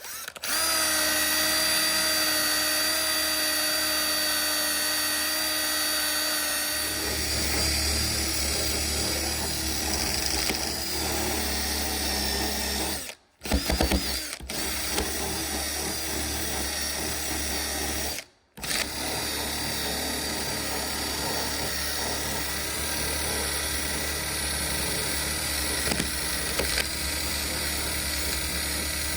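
A power tool runs with a steady whine. About seven seconds in, its sound turns rougher and lower. It cuts out briefly twice in the middle, then starts again.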